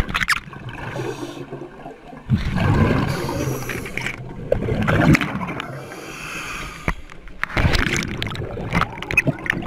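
A scuba diver breathing through his regulator underwater, with gurgling bursts of exhaled bubbles a couple of seconds apart. He is blowing out through his mouth rather than his nose, so the air goes out of the regulator instead of into his flooded mask, which will not clear.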